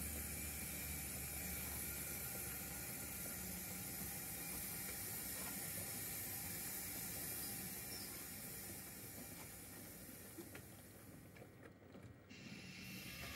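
Wheels of a 0 gauge (7mm scale) model goods train of coal wagons and a brake van running along the track. The sound is steady, then fades away as the last vehicle passes out of earshot near the end.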